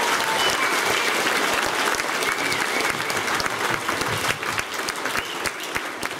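An audience of schoolchildren applauding, the clapping thinning out and growing quieter over the last couple of seconds.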